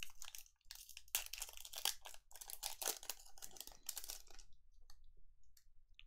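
Trading cards being handled by hand: a quick, busy run of rustles and clicks for about four and a half seconds, then a few faint ticks.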